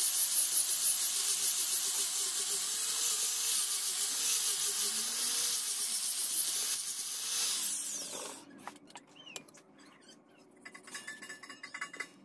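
Makita angle grinder with a sanding disc sanding a wooden knife handle: a loud steady high hiss over the motor's whine. About eight seconds in it is switched off and winds down, leaving faint clicks from the handle being handled.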